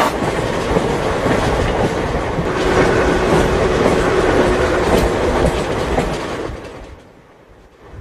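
Moving train: the steady rolling noise of a passenger coach on the rails, which fades away in the last second or two.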